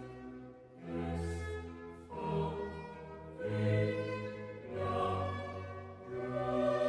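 Orchestral music with a choir singing, in slow swelling phrases.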